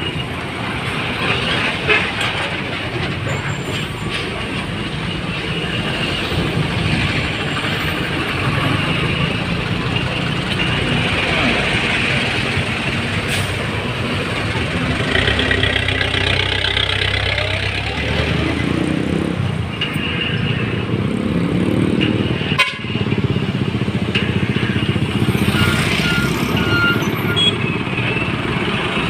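Busy street traffic of heavy diesel trucks and motorbikes passing close by. A little past halfway a truck engine revs up and down as it pulls through.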